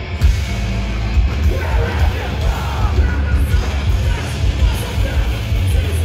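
Hardcore punk band playing live, loud and heavy in the bass, with electric guitar and drums; the singer's shouted vocals come in about a second and a half in.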